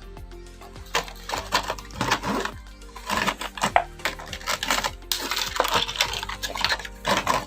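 Irregular crackling and clicking of a toy's plastic and cardboard packaging being handled and opened, starting about a second in, over soft background music.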